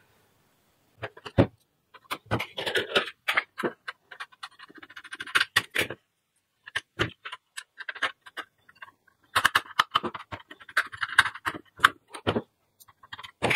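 Irregular clicks, taps and light clattering of hands handling parts and wiring inside an open satellite receiver's metal chassis, in clusters with short silent gaps.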